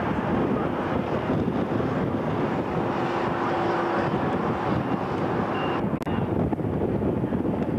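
Steady wind rumble on the camcorder microphone, a dense roar, with a click and a change in the sound about six seconds in where the recording cuts to a new shot.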